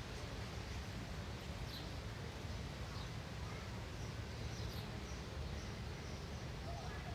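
Steady outdoor background noise with a low rumble, and a few faint, short bird chirps spaced a second or two apart.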